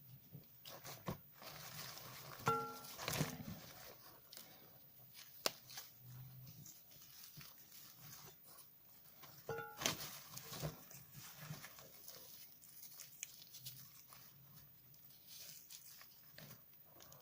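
Soap bar coated in washing powder being crunched, with scattered crackles and clicks. Two louder crunches, about seven seconds apart, each carry a brief squeak.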